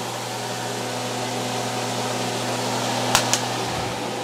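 Range-hood exhaust fan running with a steady hum, over the even sizzle of cauliflower rice frying in a pan. Two short clicks a little after three seconds in.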